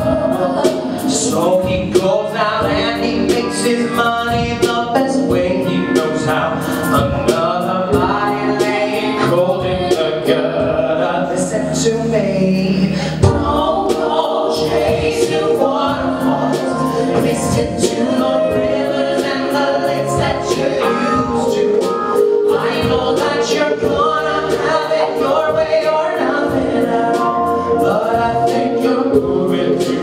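Live vocal performance of a pop-soul song: several voices singing together in harmony over a band, with regular percussion and a bass line that drops out about halfway through.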